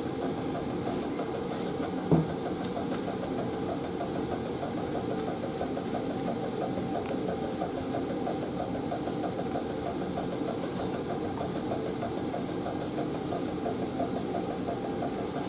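Steady machine hum of running lab equipment, with a fast, even pulsing in it. Two short hissing rubs of a tissue wiping glass about a second in, and a single soft knock about two seconds in.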